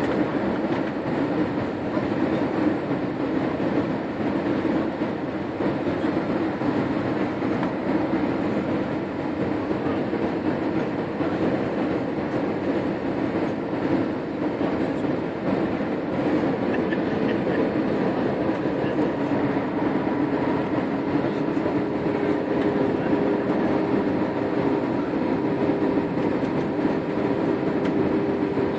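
Steady roar of an airliner's engines and airflow heard from inside the passenger cabin. A steady engine tone comes in about two-thirds of the way through.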